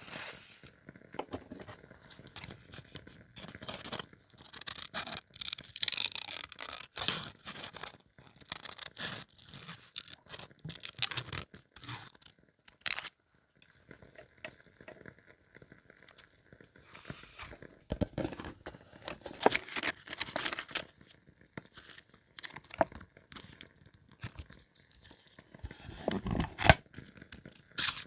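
Paper being handled and torn, with crinkling, rustling and small sharp clicks in irregular bursts and short pauses, as in paper journaling work.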